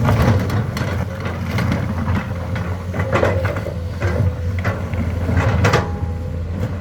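Komatsu excavator's diesel engine running steadily under work, with irregular knocks and scrapes over it, loudest a little after halfway and again near the end.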